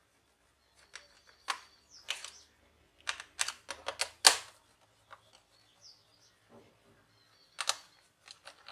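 Small screwdriver and screw clicking and tapping against the plastic underside of a Sony Vaio E series laptop as the hard-disk compartment door screw is put back. Scattered single clicks, a quick cluster of clicks a few seconds in, and a couple more near the end.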